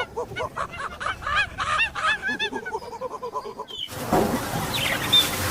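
A flock of birds calling, many short arched calls overlapping in quick succession. The calling cuts off abruptly about four seconds in, leaving a steady outdoor hiss.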